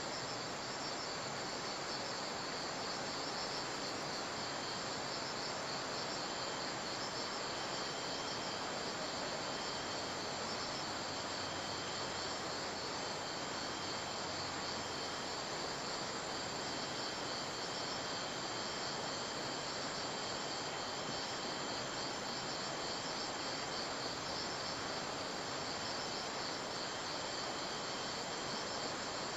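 Insects chirping in rapid, even high pulses over a steady hiss.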